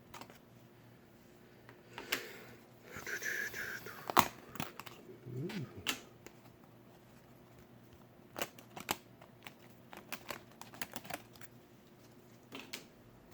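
Scattered clicks and snaps of thick cardboard board-game pieces being handled and pressed out of a punchboard, with a brief crinkle about three seconds in.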